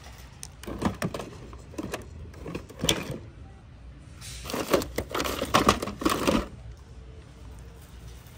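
Handling noises: clattering clicks and crinkling rustle in short bursts about a second in, around two and three seconds, then a longer busy stretch in the middle.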